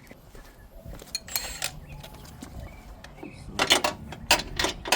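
Metal hand tools clinking and tapping: scattered sharp metallic clicks, with several strong clinks close together in the last second and a half.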